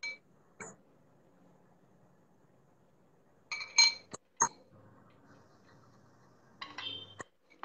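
A small glass bowl and a ceramic plate clinking as they are handled: a single clink at the start, a quick run of clinks with a short ringing tone about three and a half to four and a half seconds in, and another run near the end.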